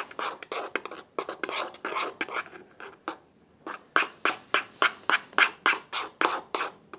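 Glitter-glue slime being stirred and worked in its container, a run of short wet clicks and smacks. They pause briefly about three seconds in, then settle into a steady rhythm of about three strokes a second.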